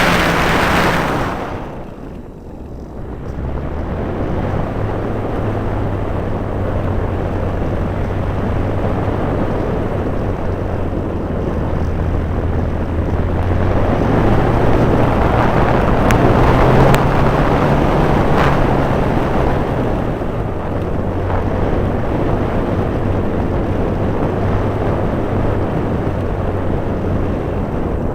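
Radio-controlled model Cessna 400 Corvallis in flight, its motor and propeller making a steady drone that rises a little in pitch through the middle. A loud rushing sound fades out within the first two seconds.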